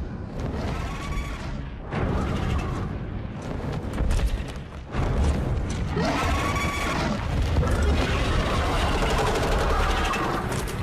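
TV battle soundtrack: deep booming, rumbling blasts with dramatic music, and a dragon's screeching cry rising and falling, about a second in and again more strongly around the middle.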